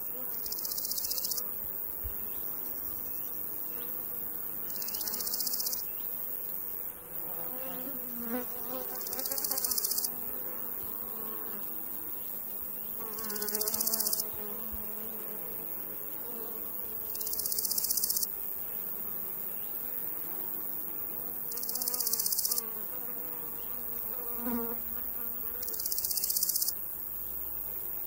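Summer meadow insects: a cricket's high buzzing trill about a second long, repeating every four seconds or so, with flies buzzing past now and then.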